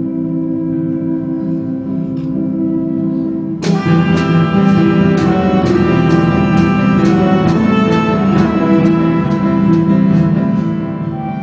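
Instrumental music: held, sustained tones, then a louder, fuller passage with a steady pulse of struck or plucked notes, about two a second, comes in about a third of the way through.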